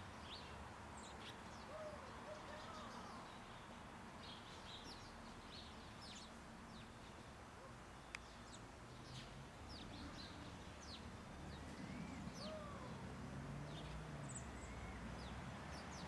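Faint, short high chirps from several small birds, scattered throughout, over a low steady background rumble. A single sharp click comes about eight seconds in.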